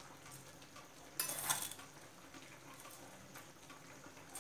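Crisp shoestring potato sticks rustling and crunching as metal tongs press them onto a loaded hot dog: one short crackly burst about a second in, with a few faint clicks of the tongs.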